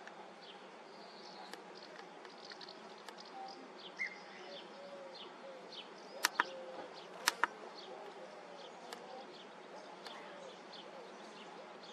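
Quiet outdoor ambience: a steady faint hum, scattered short high chirps, and two pairs of sharp clicks about six and seven seconds in.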